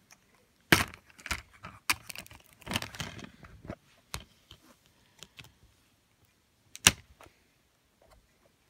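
Plastic DVD case being opened and handled: a run of sharp clicks and rattles for the first few seconds, then one loud snap about seven seconds in.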